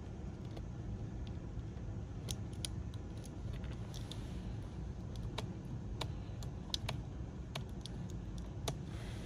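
Small, sharp, irregular clicks and taps of a plastic spudger and fingertips on the internal parts and cable connectors of a Lenovo ThinkPad X1 Carbon Gen 9 laptop, about a dozen starting about two seconds in, over a steady low hum.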